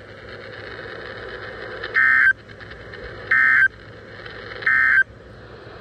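Emergency Alert System data tones from a weather radio broadcast: three short, loud bursts of buzzing digital tones about 1.3 seconds apart over the radio's steady hiss. This is the pattern of the end-of-message code that closes an alert.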